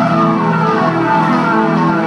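Music playing: sustained layered tones, with some pitches sliding up and down.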